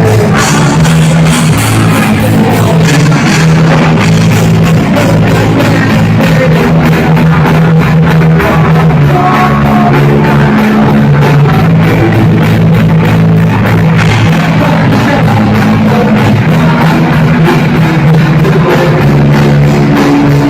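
Loud punk rock music: distorted electric guitars and bass holding chords over a fast drum beat, with singing.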